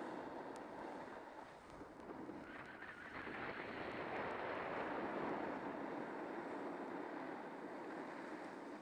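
Wind rushing over the camera microphone of a person sliding down a groomed ski slope, mixed with the steady hiss of sliding on snow. The noise swells and eases with the turns and is brightest a few seconds in.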